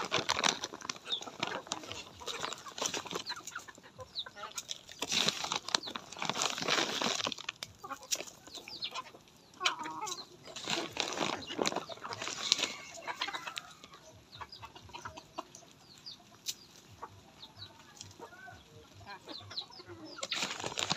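A flock of native chickens clucking while pecking at scattered feed, with irregular short taps and scratching on the gravel.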